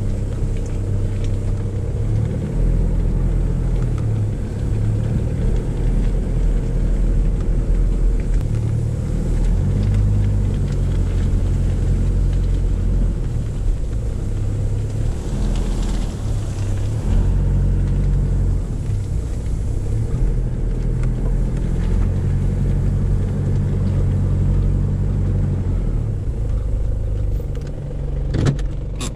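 SUV engine and drivetrain running in a low gear at slow off-road speed, heard from inside the cabin as a steady low rumble whose pitch shifts up and down with the throttle. A few sharp clicks near the end.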